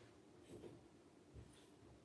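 Near silence: room tone with two faint knocks, about half a second and a second and a half in.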